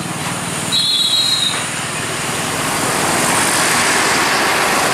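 Large Mercedes-Benz coach bus driving past close by over a railway level crossing, its engine and road noise swelling and loudest in the second half as it goes by. A brief high tone sounds about a second in.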